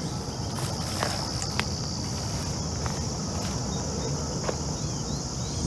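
Insects chirring steadily in a high, even band, with footsteps crunching on gravel and soil and a few faint clicks.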